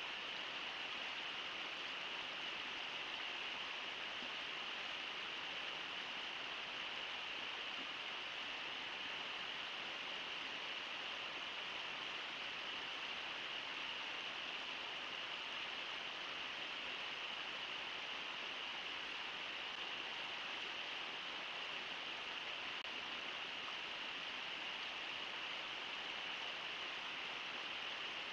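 Steady rush of flowing river water, an even hiss that holds level throughout with no distinct splashes or animal sounds.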